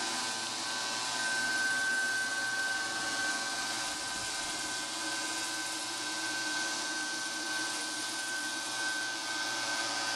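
Spray deck-coating equipment running steadily: a constant air hiss with a high, unchanging whine over it.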